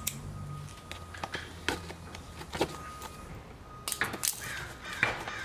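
Exhaust kit packaging being opened and handled: scattered clicks and knocks, with bursts of rustling about four and five seconds in.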